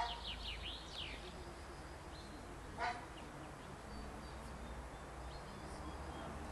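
A songbird sings a short run of quick downward-sliding high notes near the start. About three seconds in comes a single short, sharp sound. A steady low rumble lies under it all.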